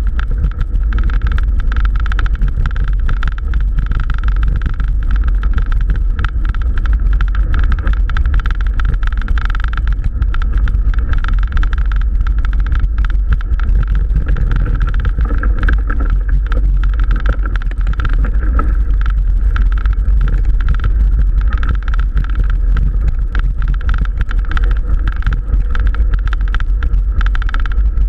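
Wind buffeting the action camera's microphone as a mountain bike rides a rough dirt track. The tyres rumble over the ruts with frequent small knocks, over a steady whine.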